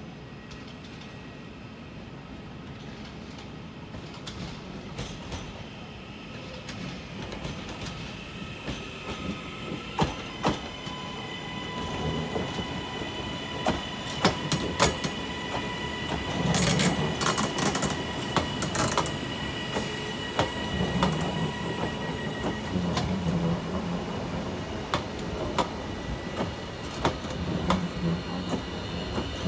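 Northern Class 331 CAF electric multiple unit arriving, growing louder as it draws near, with a steady high whine. Its wheels clatter and click over rail joints and points, mostly around the middle.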